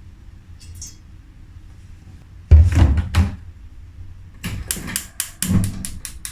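A heavy metal knock as a wok is set down, followed about half a second later by a second knock, then a quick run of sharp clicks and knocks of kitchen handling near the end.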